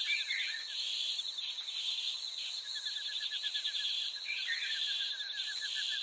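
Outdoor nature ambience: a steady high insect drone, with a rapid pulsing trill that stops early and returns about halfway through, and two short bird chirps.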